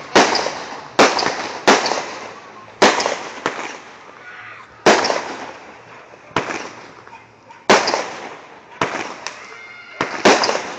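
Fireworks going off: a string of sharp bangs, roughly one a second and unevenly spaced, each trailing off in a fading crackle.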